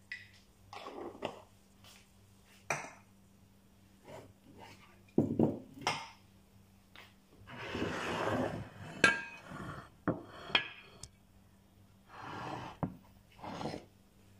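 Kitchen clatter: a string of separate knocks and clinks of pots, jars and containers being handled, with stretches of rustling.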